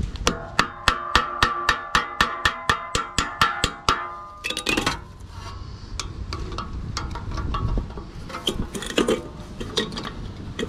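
Pliers tapping rapidly on the hub of a condenser fan blade that is seized on the motor shaft, about four or five metal strikes a second for some four seconds, the blade ringing after each. Then softer scraping and clinking of the pliers working at the hub.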